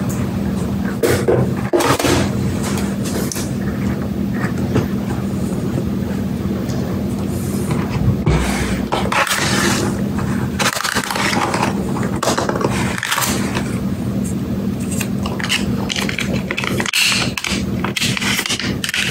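Cardboard tablet packaging being handled: the lid and card inserts slide, scrape and rustle in irregular short bursts, over a steady low hum.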